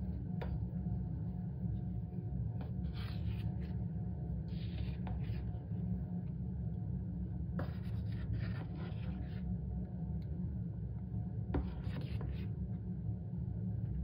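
Cornstarch crunching and squeaking as a hand squeezes it and a metal spoon scoops and scrapes it, in short crunchy bursts several times with a few sharp clicks. A steady low hum runs underneath.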